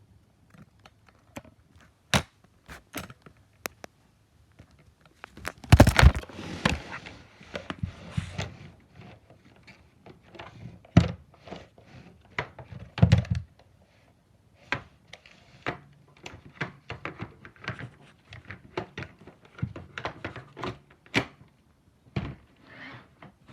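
Roomba 980 robot vacuum knocking and bumping about, with a faint low hum underneath: many irregular clicks and knocks, and heavy thunks about six and thirteen seconds in.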